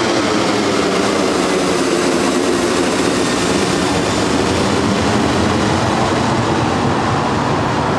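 Embraer E190's two CF34 turbofan engines at takeoff power as the airliner climbs away overhead: a loud, steady jet rush with a slowly shifting tone, the high hiss dulling a little near the end.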